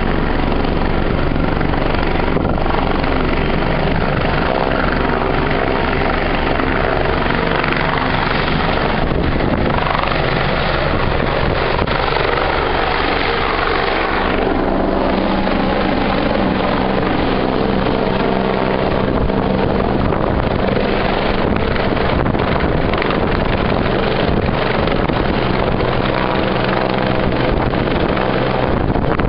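Bell 430 helicopter's twin turbine engines and main rotor running loud and steady as it lifts off and flies overhead.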